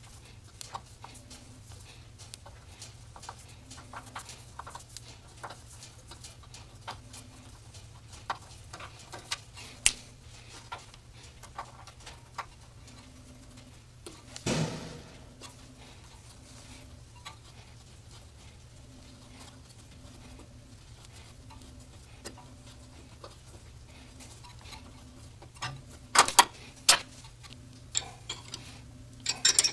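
Small tubing cutter being turned around a steel fuel line to cut it, giving light irregular clicks. There is one louder clunk about halfway through and a few sharp metal clinks near the end.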